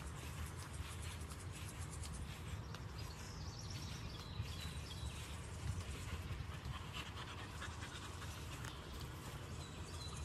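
A dog panting, over a steady low rumble.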